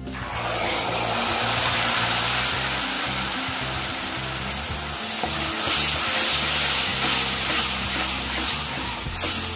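Boiled chana dal poured into a pan of hot spiced oil for a tadka, setting off a loud sizzle that starts suddenly and keeps going while it is stirred, swelling again about six seconds in.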